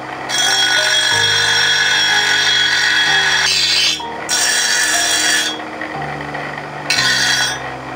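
Bench grinder's abrasive wheel grinding a steel blade, with a harsh, high grinding sound in three passes: a long one of about three seconds, then two shorter ones.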